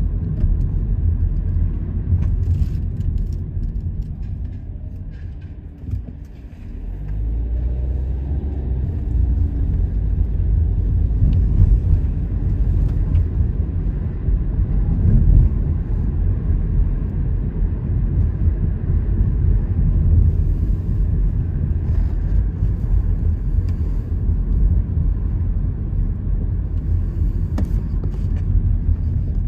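Low road and engine rumble heard inside a car driving slowly. It eases off about five to six seconds in, then builds again with a rising engine note as the car picks up speed.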